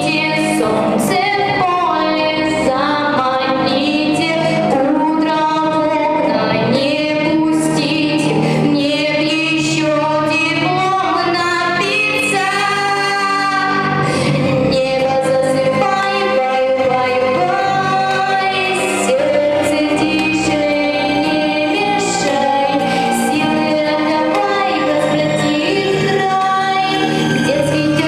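A young female solo vocalist sings a melodic song through a handheld microphone, with sustained held notes over instrumental accompaniment.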